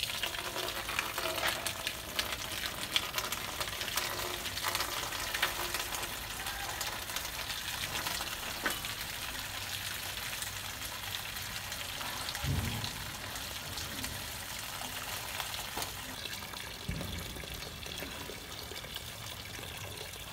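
Tap water running in a steady stream and splashing into a water-filled stainless steel basin, with scattered small clicks and two dull bumps midway.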